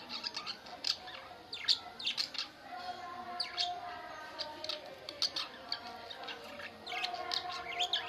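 Several caged budgerigars chattering: a steady stream of quick, sharp chirps mixed with soft warbling.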